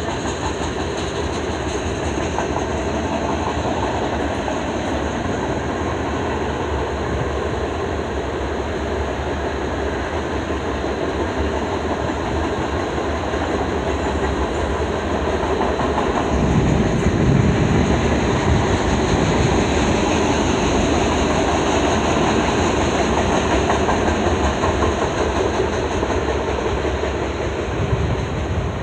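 Freight train boxcars rolling past: a steady rumble of steel wheels on the rails, louder for a few seconds about halfway through, easing as the last car goes by near the end.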